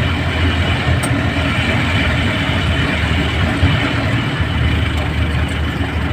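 Passenger jeepney's engine running steadily under way, heard from inside the cab as a low, even drone with road noise.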